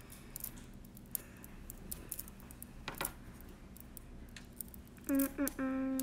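Small magnet balls clicking and snapping against one another as a strip of them is wrapped around a tube built of magnet balls. About five seconds in, a person hums a few steady notes, louder than the clicking.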